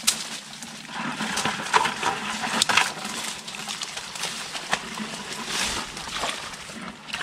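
Dry leaves and twigs crunching and rustling underfoot as someone pushes through dense brush, with scattered sharp cracks of snapping twigs and branches.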